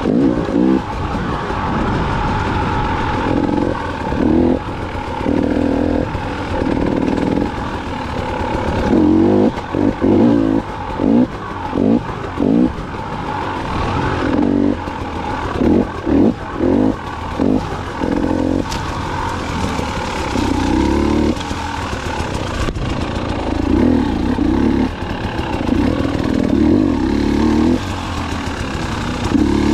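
2019 KTM 300 XC-W two-stroke dirt bike engine under way, the throttle opened and shut in many short bursts, several in quick succession, with a few longer pulls between.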